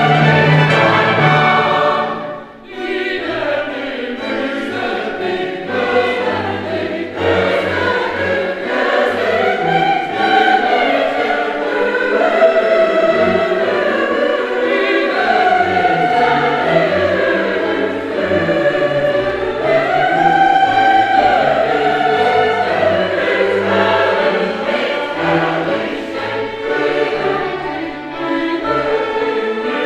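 A choir singing, starting after a short break in the music about two and a half seconds in.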